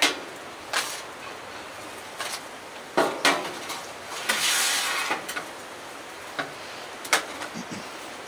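A scattering of sharp knocks and clatters as dishes and utensils are handled and set down, with a brief rushing noise near the middle.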